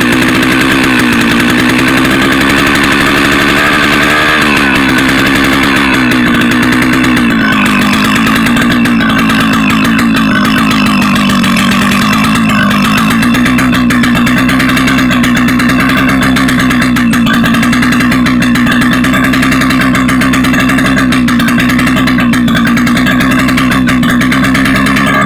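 Vintage Stihl 051 AV two-stroke chainsaw engine running continuously, its speed wavering up and down. It is running lean, which the owners put down to the low-speed carburettor jet.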